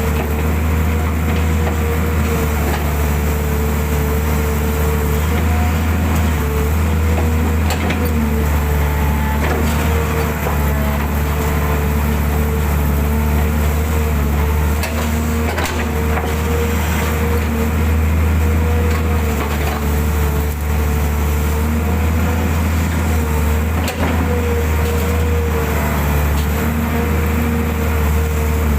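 Hydraulic excavator's diesel engine running steadily at working revs, with a steady high tone over the low drone of the engine. There are a few sharp knocks while it digs.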